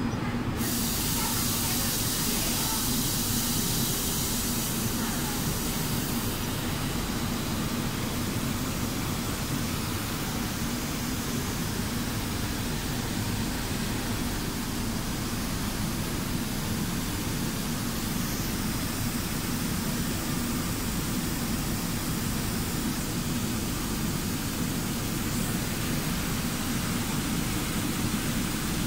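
Steady machinery noise of an automatic spray-coating line running, mostly the rush of the spray booth's exhaust fans, with a low steady hum underneath.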